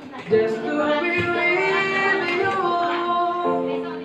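A boy singing solo into a handheld microphone, holding long notes and gliding between them.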